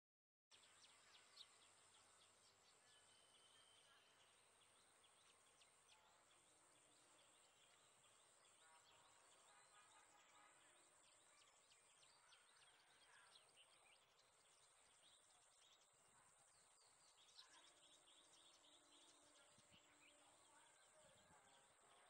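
Faint outdoor nature ambience: small birds chirping on and off over a steady high-pitched drone, starting about half a second in.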